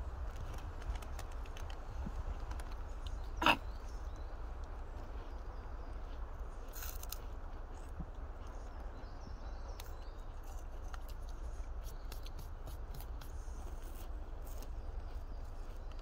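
Quiet outdoor background with a steady low rumble, a single sharp knock about three and a half seconds in, and scattered faint clicks and rustles.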